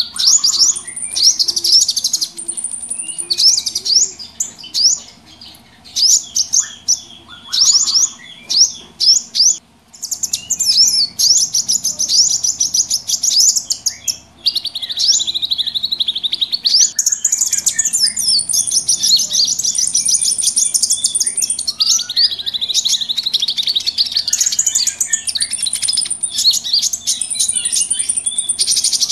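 A dense, noisy chorus of many small birds chirping and twittering at once, in rapid high chirps with short, thin, held whistled notes above them. The chorus briefly drops out about a third of the way through.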